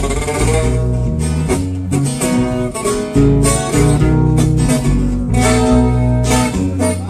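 A live corrido band playing an instrumental break between verses: a guitar picking out the melody over steady low bass notes, with no singing.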